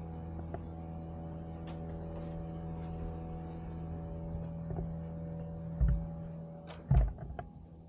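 Steady machine hum of several held tones, then two dull thumps near the end as a wooden front door is pulled shut, after which the hum is gone.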